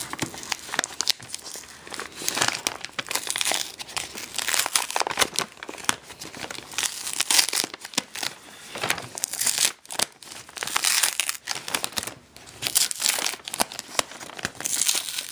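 Mailing envelope crinkling irregularly as hands press it flat and pull it open, with short bursts of tearing.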